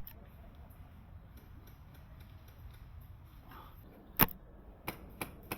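Sharp mechanical clicks from an airsoft SRS bolt-action sniper rifle: one loud click about four seconds in, then three lighter clicks close together near the end.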